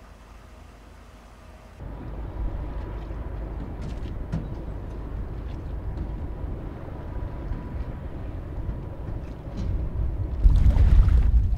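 Quiet at first, then after about two seconds a steady low rumble from a river pusher boat's diesel engine running as it moves along the river. Near the end a louder gust of wind buffets the microphone.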